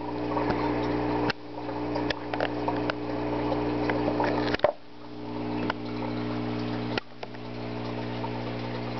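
Aquarium air pump humming steadily, with bubbling water from a sponge filter. A few sharp clicks and knocks, and the level drops suddenly several times.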